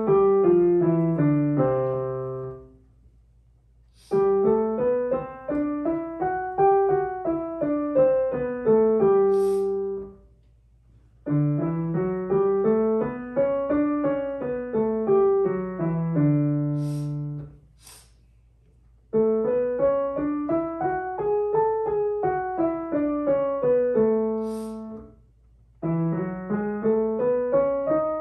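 Digital piano played with both hands: quick, even scales running up and then back down, one after another with a short pause between each.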